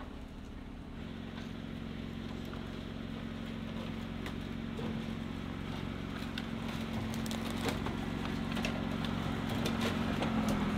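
Jeep Wrangler engine running at low speed as it crawls along a forest trail, growing steadily louder as it approaches. Scattered sharp snaps of twigs under the tyres come more often in the second half.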